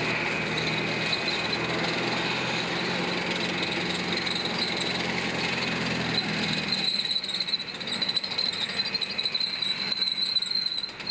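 M4 Sherman tank driving on pavement, its engine running with a deep note and its steel tracks clattering. About seven seconds in, the deep engine note falls away and a choppier clatter with a steady high whine takes over.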